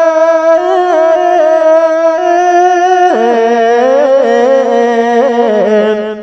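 Ethiopian Orthodox liturgical chant: a single voice holds a long, ornamented melismatic note. The pitch drops about three seconds in, and the voice fades out near the end.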